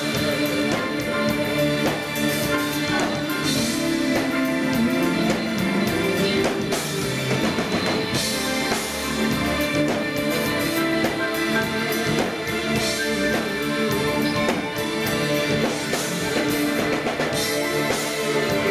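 Live jazz band playing, with an acoustic grand piano over a drum kit and cymbals.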